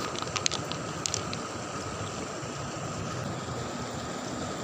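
River water flowing steadily, with a few light sharp clicks in the first second or so.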